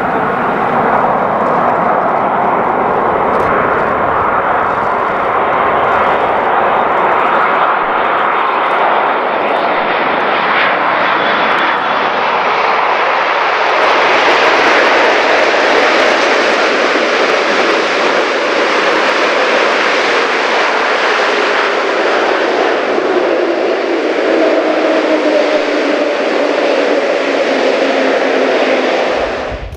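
Boeing 787 jet engines, Rolls-Royce Trent 1000, running loud as the airliner lands and rolls out on the runway. Over the second half a whine falls steadily in pitch.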